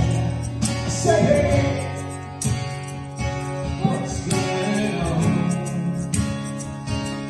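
Live acoustic guitar strumming with singing over it.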